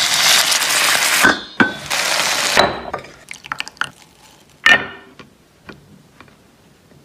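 Water poured into a hot pan of pan-fried dumplings hisses and sizzles loudly as it turns to steam, in two bursts of about a second each. Light clicks follow, then a single sharp clink of dishware about five seconds in.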